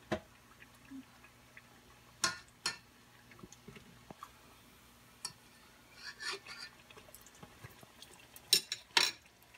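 A few sharp clinks and knocks of kitchen utensils and cookware, such as a metal fork against a saucepan or plate, scattered with gaps between them; the loudest come near the start, a pair a couple of seconds in, and a pair near the end.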